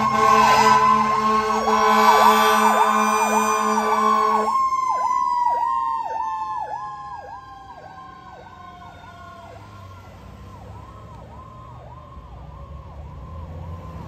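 Fire engine's siren sounding a rapid repeating yelp. A steady deep horn tone sounds with it until about four seconds in and then cuts off, while a second siren tone slowly winds down in pitch. Everything fades over the next few seconds as the engine drives away.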